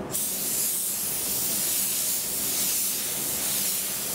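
Gravity-feed paint spray gun with a 1.6 setup, its air pressure turned down to 1 bar, spraying a steady hiss as a light-to-medium sealing coat of filler goes onto a car body repair. The hiss starts abruptly right at the beginning.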